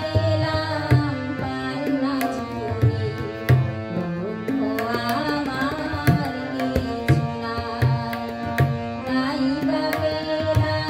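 A Bengali song played on a harmonium with drum accompaniment, struck roughly once or twice a second, and a woman singing along.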